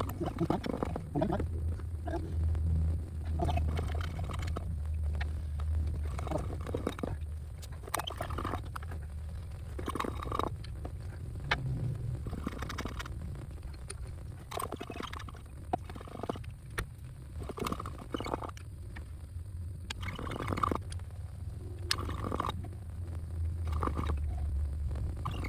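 Hands-on work at a brake caliper while a vacuum pump is hooked to its bleeder valve: scattered clicks, light scrapes and brief gurgles of brake fluid over a steady low hum.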